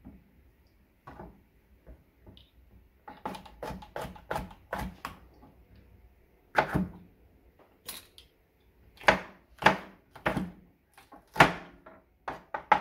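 Chef's knife chopping mini bell peppers on a plastic cutting board: irregular knocks of the blade on the board, sparse at first, then several a second from about three seconds in, with the loudest strokes in the second half.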